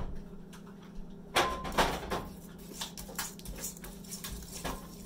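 A few light knocks and clinks of kitchenware, clustered about a second and a half to two seconds in and once more near the end, over a low steady hum.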